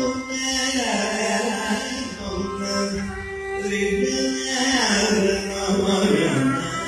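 Carnatic classical music: a male vocalist singing long, gliding ornamented notes, accompanied by violin and mridangam.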